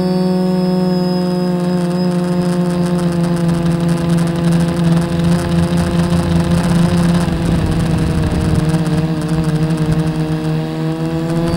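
Quadcopter's brushless motors and propellers whining, heard from its onboard camera: a steady pitched hum with several overtones that dips slightly in pitch near the end, with wind buffeting the microphone in the middle.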